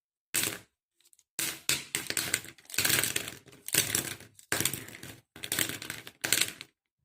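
Sketch pens knocked and tapped against a hard surface in quick flurries of clicks, several short runs broken by brief pauses.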